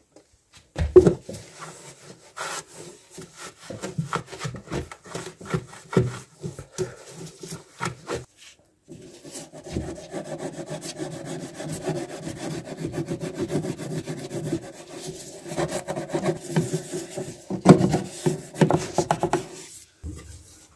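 Bamboo toothbrush scrubbing grime out of the floor edge in a tight corner under a bathroom cabinet: scratchy, irregular strokes at first, then from about nine seconds in quick, steady back-and-forth scrubbing.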